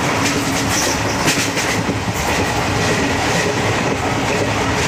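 Passenger train running along the line, heard from inside the carriage: a steady rumble of wheels on the rails, with a few clacks about a second in.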